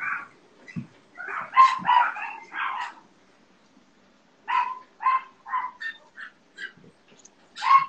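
A dog barking in short, quick runs of several barks, one about two seconds in and another about five seconds in, with scattered fainter barks between and a loud bark near the end.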